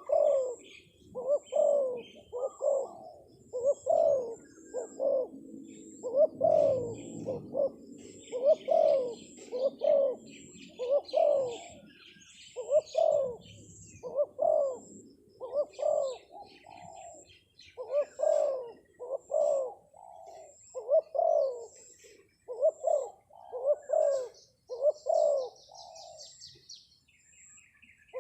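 Spotted dove (terkukur) cooing over and over in a long run of short coos, one to two a second with brief pauses between phrases. Small birds chirp faintly in the background.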